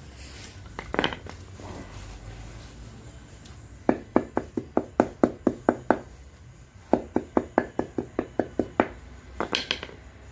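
Light tapping on a plastic car bumper during a soldering-iron repair, in two quick runs of about eight taps each, roughly four a second.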